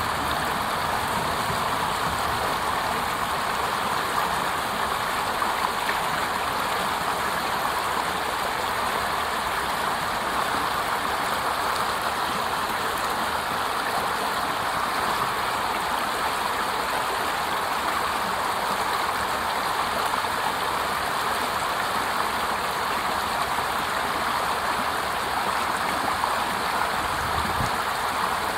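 Water running over a small cascade: a steady, even splashing noise that does not change.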